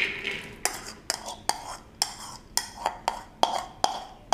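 Soaked chana dal being tipped from a ceramic bowl into an aluminium pressure cooker, heard as a string of sharp clicks and clinks, about three a second.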